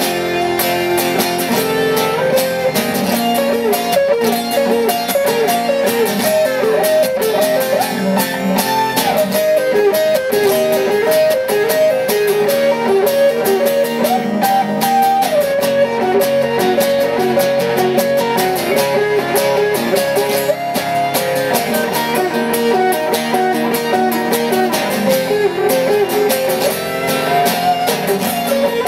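Two amplified acoustic guitars playing an instrumental passage: a lead guitar solo of quick note runs and bent notes over strummed chords.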